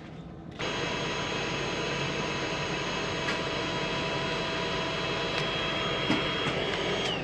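A small electric motor switches on abruptly and runs at a steady high whine for about six and a half seconds, then is switched off and winds down, its pitch falling away near the end.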